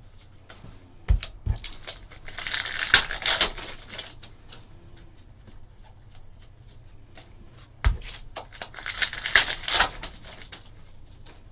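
Plastic trading-card pack wrapper crinkling in two spells as it is torn open and handled, with a few light knocks of cards against the table.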